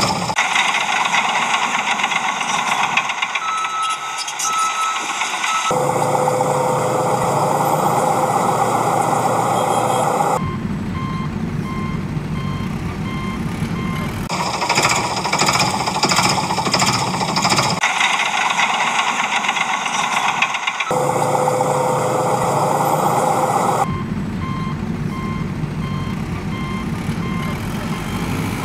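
Heavy-machinery sound effects cycling in abrupt blocks of a few seconds: a fast, even rattling like a jackhammer, a truck engine running, and a reversing beeper sounding about once a second.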